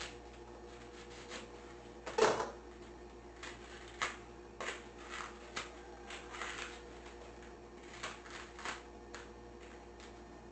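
Outer sheaths being stripped from a hachiku bamboo shoot: irregular crisp crackles and snaps of the tough husk, the loudest about two seconds in.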